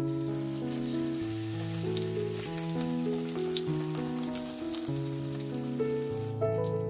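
Flatbread shallow-frying in vegetable oil, the oil sizzling with fine crackles, under background music whose melody moves in held notes stepping up and down.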